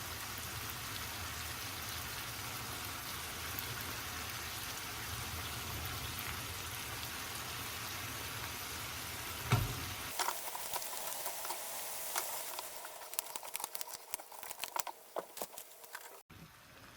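Mussels and seafood sizzling in a hot wok, a steady frying hiss over a low hum. About ten seconds in there is a knock, the hum stops, and the sizzle turns to scattered sharp crackles and clicks that thin out.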